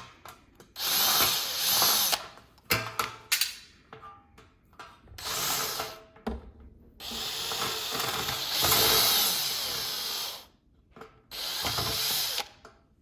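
Electric drill-driver spinning in four bursts of one to three seconds, its pitch swelling and sinking as the trigger is worked, backing out the screws that hold the heater's feet. Sharp clicks and knocks of handling come between the bursts.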